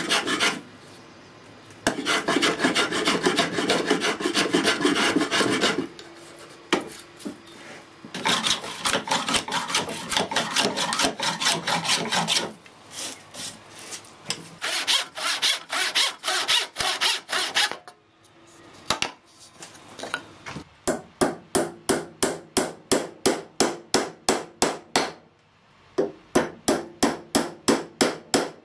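Hand tool working wood in long scraping stretches, then in the last third a hammer driving small nails into the wooden box in a steady run of blows, about two or three a second, with one short pause.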